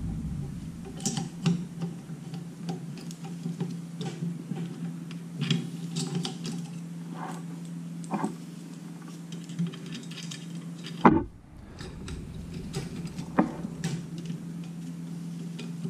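Light metallic clicks and clinks of drum-brake springs and shoe hardware being handled and hooked onto the backing plate, scattered irregularly over a steady low hum. A sharper, louder knock comes about eleven seconds in.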